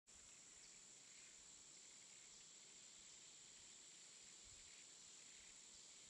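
Near silence, with a faint steady high-pitched tone throughout.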